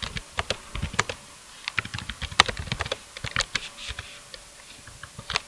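Typing on a computer keyboard: irregular key clicks, several a second, growing sparse near the end.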